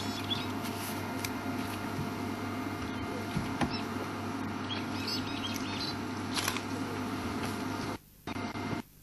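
A drongo calling in short, chirpy phrases every second or two over a steady low hum. The sound briefly drops out near the end.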